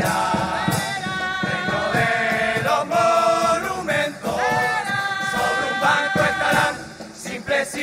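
A murga chorus singing a melodic phrase in several voices, with drum and cymbal beats underneath.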